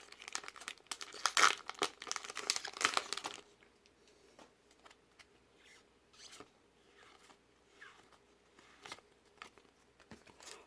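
Crinkling and rustling of a foil Pokémon booster pack wrapper being handled, busy for about the first three seconds, then only faint scattered handling sounds.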